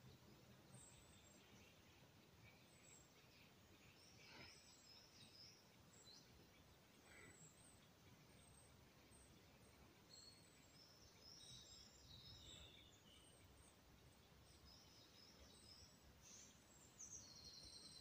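Faint songs and calls of woodland songbirds: short, high chirps and phrases scattered throughout over a quiet background hiss, with a louder phrase about a second before the end.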